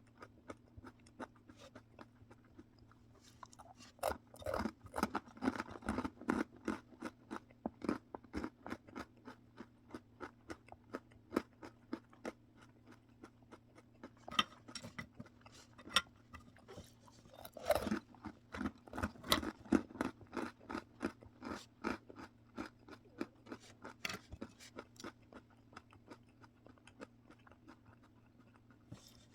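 Close-up crunching and chewing of a crunchy snack, in quick irregular crackles with louder bites in several clusters. A faint steady hum lies underneath.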